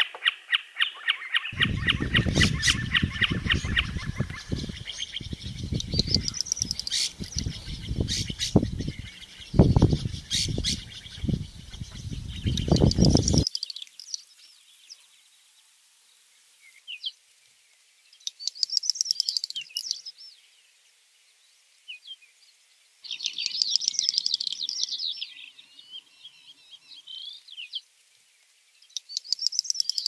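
Birds chirping: bursts of short, quickly repeated arched chirps. Through the first half, loud low rumbling noise in gusts lies under the calls.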